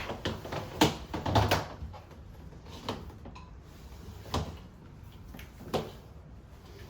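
A run of sharp knocks and clatters, bunched in the first two seconds with the loudest about a second in, then single knocks roughly every second and a half.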